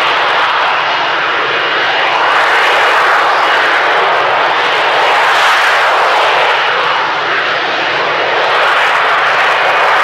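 F-35B's F135 jet engine and lift fan holding the jet in a hover, a loud steady jet roar with a thin high whine on top that swells slightly now and then.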